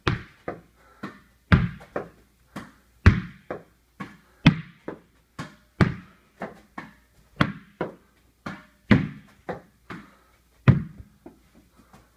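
Tennis ball being hit with a racket and bouncing off the walls and floor of a small bare room: a loud, echoing hit about every one and a half seconds with lighter bounces between. Near the end a few fainter, quicker bounces as the ball dies down.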